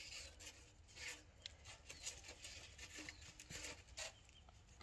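Faint, soft rubbing strokes of a wooden rolling pin rolling out dough on a wooden board, coming at irregular intervals.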